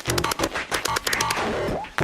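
Music with a fast run of sharp cracks and hits mixed in.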